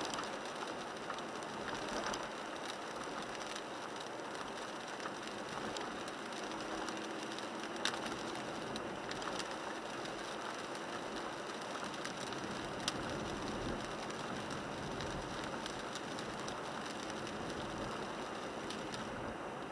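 Rain on the windshield and roof and tyres hissing on a wet road, heard from inside the cabin of a 1998 Toyota 4Runner while it drives, with a few sharp ticks from drops landing.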